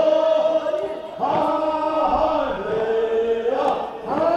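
A chorus of voices singing a Korean funeral bier song (sangyeo-sori) in unison, in long held phrases with a short break about a second in and again near the end; the middle phrase steps down in pitch.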